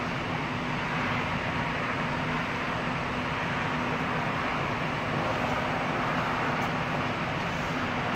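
Steady noise inside a BART train car standing at a station with its doors open, with a steady low hum running under it.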